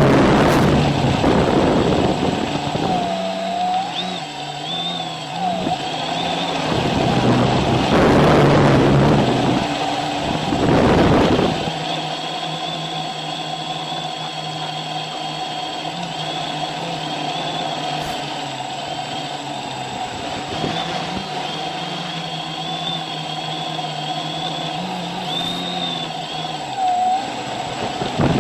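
Quadcopter's electric motors and propellers whining steadily, their pitch wavering slightly with throttle, with several loud rushes of wind-like noise in the first half.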